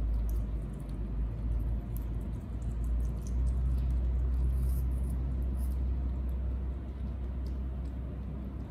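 Guinea pigs and baby monkeys eating carrot sticks and fruit slices: faint scattered crunching ticks over a steady low rumble.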